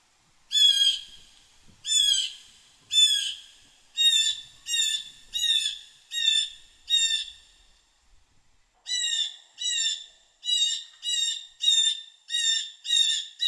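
Blue jay giving its harsh 'jay' call over and over: three calls about a second apart, then a quicker run of about six, a pause of about a second, and another fast run of about two calls a second.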